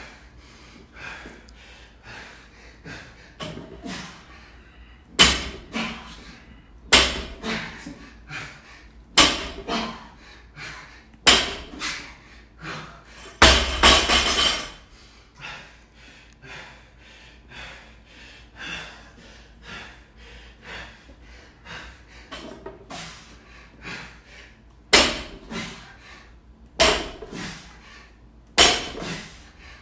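Loaded barbell with rubber bumper plates set down hard on a rubber floor mat during deadlift reps, a sharp thud about every two seconds. There is a run of these thuds, then a longer, louder clattering impact near the middle, then a quieter stretch, then another run near the end.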